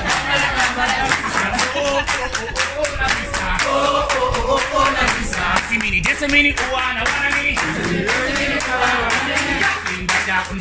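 A group of people singing together while clapping their hands to a steady beat.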